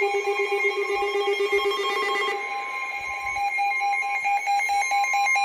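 Several NOAA weather radio receivers sounding their electronic alert alarms together, a loud pulsing beeping at several pitches that signals an incoming severe thunderstorm warning. About two and a half seconds in the lowest tone drops out while the higher tones keep pulsing.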